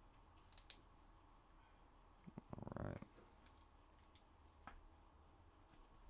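Near silence with scattered faint clicks, and a brief soft clicking rattle about two and a half seconds in, from hands handling trading cards and a plastic card holder.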